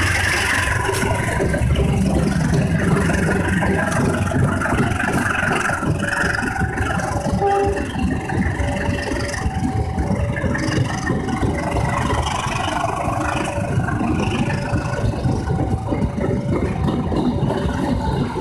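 A train's diesel engine rumbling steadily. From about a third of the way in, a two-tone warning signal sounds, alternating low and high notes at an even pace.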